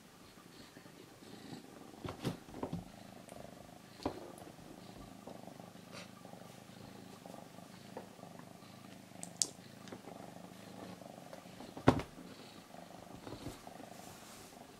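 Domestic cat purring steadily close by, with a few sharp knocks and clicks scattered through, the loudest about twelve seconds in.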